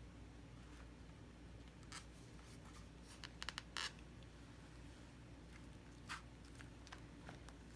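Slime being handled: a few faint sticky clicks and crackles, with a quick cluster of them about three and a half seconds in and a single one near six seconds, over a low steady room hum.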